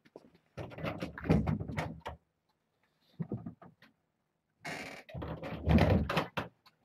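Two bursts of knocking and rustling close to the microphone, about half a second in and again near the end, as a person moves right past it, with a few faint ticks in between.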